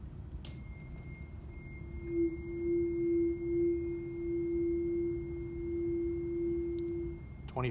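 A 341.3 Hz tuning fork struck about half a second in, ringing one steady pure tone. About two seconds in it swells much louder and wavers slightly as the air column in the closed-end glass resonance tube reaches resonance. It then dies away near the end.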